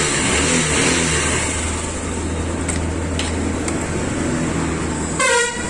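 Honda Shine SP's single-cylinder four-stroke engine running just after starting on its electric starter, revved briefly about half a second in, then idling steadily. A short voice cuts in loudly near the end.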